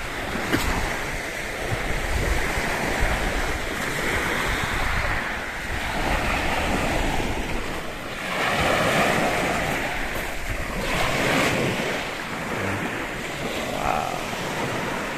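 Sea waves surging and washing onto a beach in several rising and falling swells, with wind buffeting the microphone.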